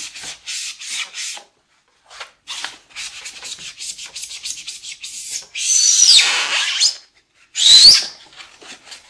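Damp melamine sponge scrubbing the plastic case of a Macintosh 512Ke in quick back-and-forth strokes. Two of the strokes near the end squeak loudly.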